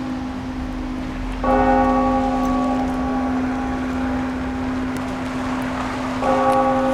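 Russian Orthodox cathedral bells ringing. A deep bell's low hum carries on throughout, and a bell is struck twice, about a second and a half in and again near the end, each stroke ringing on.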